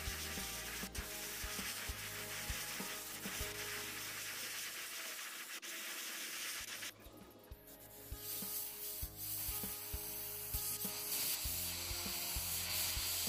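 Airbrush spraying paint: a steady hiss of air and paint mist that breaks off briefly about seven seconds in and comes back louder.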